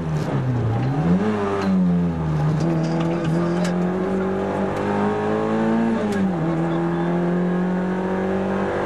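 Rally car engine heard from inside the cabin at speed. The revs dip and pick up again in the first couple of seconds, then the engine pulls steadily under load with slowly rising revs. About six seconds in an upshift drops the pitch, and it pulls on at the new gear.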